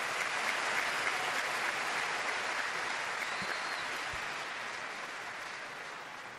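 Crowd applauding: dense clapping, loudest about a second in, that slowly dies away toward the end.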